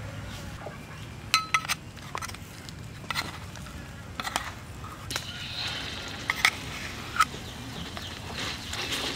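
A metal spatula clinking against a bowl and a steel wok, about ten sharp separate clinks, as a paste is scraped off into the oil. A faint sizzle begins near the end as the paste starts frying.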